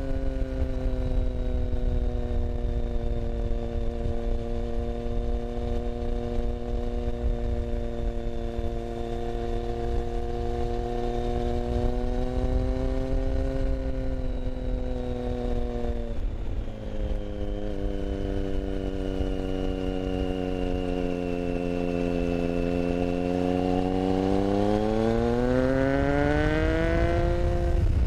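Motorcycle engine running while riding, with wind noise on the microphone. The engine note holds fairly steady and breaks off briefly about halfway through, then comes back lower and sinks further. Near the end it rises sharply as the bike accelerates.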